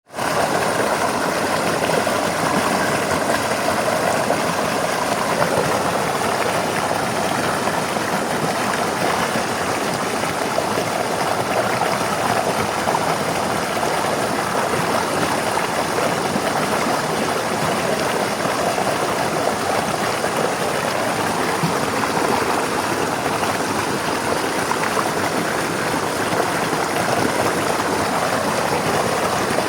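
River water flowing over rocks: a steady, even rush of running water.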